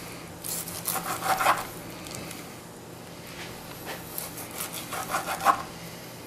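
Knife sawing through a seared cowboy steak (bone-in ribeye) onto a plastic cutting board: two bouts of short back-and-forth rasping strokes, one near the start and one about four seconds in.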